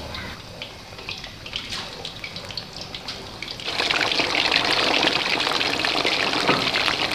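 Raw chicken pieces deep-frying in hot vanaspati ghee in a steel karahi: scattered crackling at first, then about three and a half seconds in a sudden, much louder steady sizzle.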